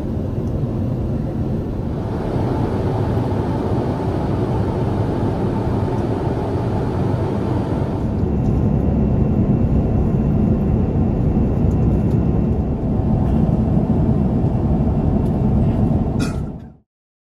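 Steady in-flight cabin noise of an Airbus A350-900 airliner, a low rumble of engines and airflow heard from inside the cabin. It shifts slightly about two and eight seconds in, then cuts off to silence near the end.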